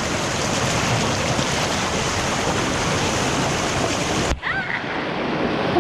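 Steady rushing of a mountain stream's water, loud and close to the microphone. About four seconds in it cuts abruptly and carries on with less hiss.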